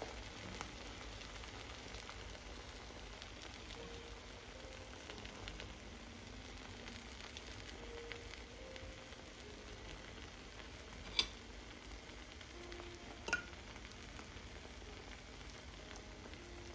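Egg and tortilla frying in butter in a pan, a soft, steady sizzle. Two sharp clicks come about two seconds apart, past the middle.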